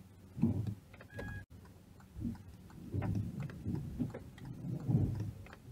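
Inside a car: the turn-signal indicator ticking, over low soft thumps and rustles from the windscreen wipers sweeping.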